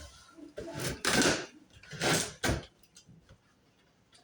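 Cardboard shipping box being handled: three short scraping, rustling bursts of cardboard in the first two and a half seconds, then quiet.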